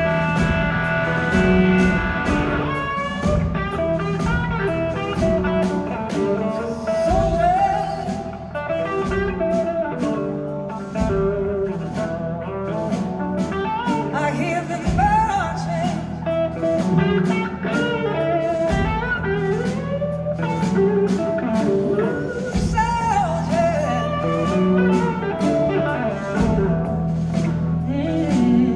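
Live blues-rock band playing loudly: an electric guitar plays bending, gliding lead lines over drums and bass. The opening two seconds are held chords before the drums come in.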